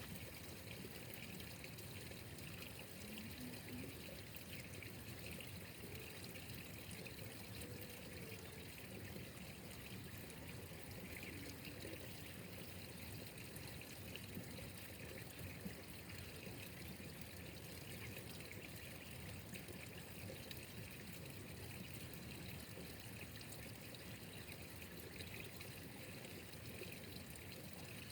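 Steady trickle of flowing water, an even hiss with no sudden sounds.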